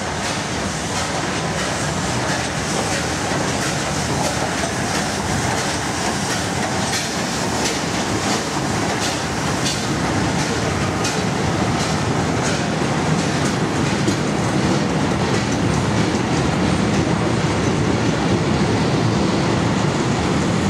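A historic train hauled by an FS Gr. 685 steam locomotive rolling past, a steady loud rumble, with the wheels clicking over rail joints, most plainly in the middle as the locomotive and then the old carriages go by.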